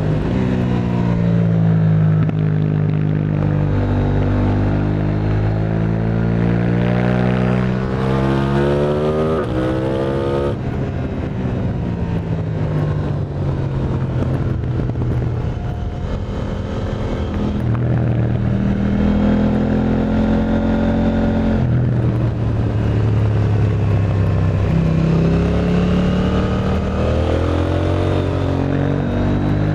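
KTM 890 Duke R's parallel-twin engine running through an Akrapovic exhaust, the revs climbing and falling again and again as the bike accelerates and slows. The pitch rises steeply and then drops sharply about ten seconds in, with further drops and climbs later.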